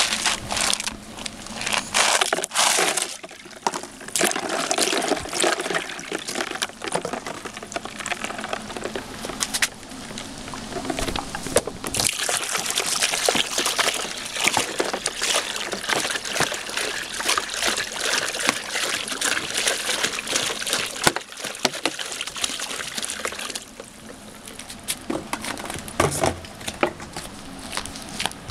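Ice cubes and water splashing into a plastic basin, with scattered clinks early on. From about twelve seconds in comes a steady stretch of pouring and sloshing water that stops suddenly about ten seconds later.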